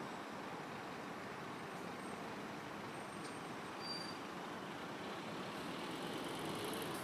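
Heavy vehicle running steadily: a continuous, even noise with a short high tone about four seconds in.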